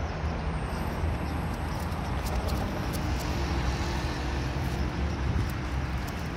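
Street traffic noise: a steady low rumble of car engines and tyres on the road, with a faint engine hum coming and going in the middle.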